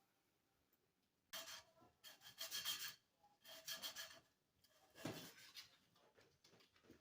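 Faint scraping or filing strokes of a hand tool on a small hard part: four short rasping strokes spread over a few seconds.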